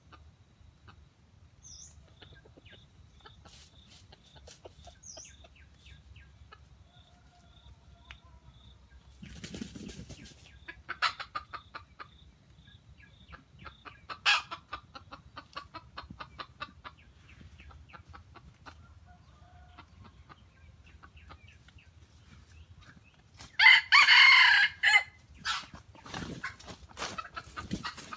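Junglefowl clucking in quick runs of short clucks, with a rooster crowing loudly once, a call of about a second and a half, a little before the end.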